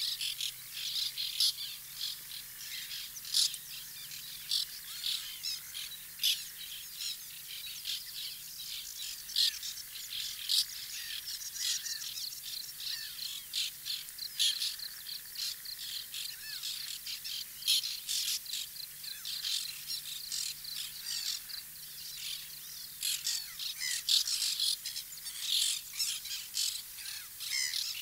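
A colony of white-winged terns giving alarm calls, many birds calling at once in a dense, continuous stream of short, harsh calls. The calls are the colony's alarm at a threat near its nests.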